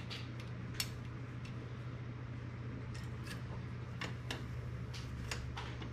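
Scattered light clicks and taps of metal engine parts being handled as the cylinder is worked down over the piston, the sharpest about a second in, over a steady low hum.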